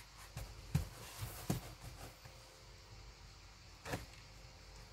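Soft thumps and scuffling of kittens play-fighting on a blanket in a cardboard box, their bodies and paws bumping the cardboard. Several knocks come in the first two seconds and one more near the end.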